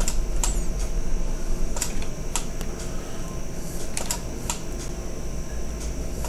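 About ten scattered, irregular clicks from a computer mouse and keyboard, over a steady low electrical hum and a faint high whine.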